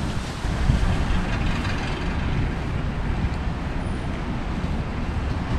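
City traffic on a rain-wet street: tyre hiss that swells about a second in, over a steady low rumble.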